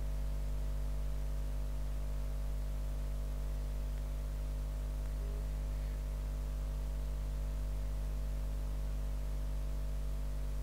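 Steady electrical mains hum with a faint hiss underneath; nothing else happens.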